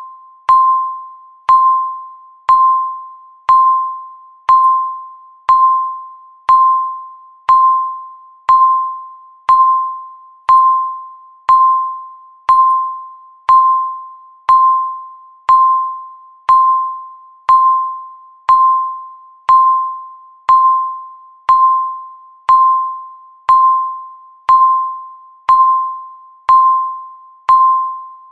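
Countdown timer beeping once a second: a single pure tone that starts sharply and fades away before the next beep, in an even, unbroken rhythm.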